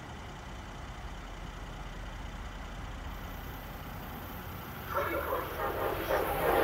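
Amtrak ACS-64 electric locomotive and train approaching along the Northeast Corridor tracks. A faint high hiss comes in about halfway through, then the rush of the oncoming train grows steadily louder over the last second and a half.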